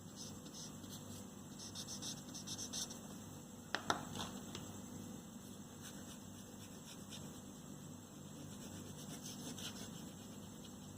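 Drawing strokes scratching across paper, many short scratches, with two sharp clicks about four seconds in, over a steady low hum.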